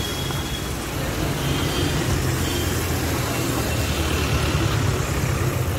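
Street traffic passing close by on a wet road: car engines running with a steady low drone and tyres hissing on the wet surface.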